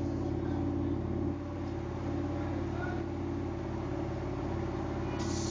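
Car engine running steadily with an even low hum. A brief hiss comes in near the end.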